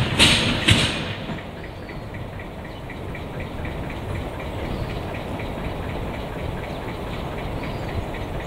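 Narrow-gauge peat railway train: a few loud metallic clanks in the first second, then a steady low engine rumble with a light regular ticking, about four ticks a second.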